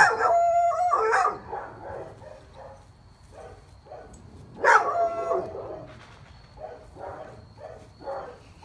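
A nervous dog barking: a long, drawn-out bark right at the start and another about five seconds in, with quieter barks between.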